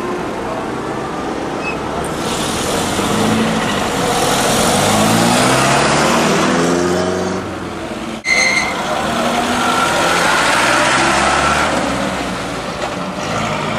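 Vintage car engines pulling away and accelerating past, the engine note rising in pitch. A break comes about eight seconds in, followed at once by a short high beep, and then another vintage car accelerates off with a rising engine note.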